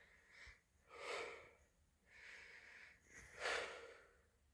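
A person breathing in and out close to the microphone, a few soft breaths about a second apart.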